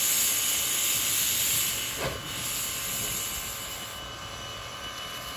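Steam locomotive No. 9, a two-foot gauge tank engine, hissing steam from its front end. The hiss is loudest for the first two seconds and then eases, with one short thump about two seconds in.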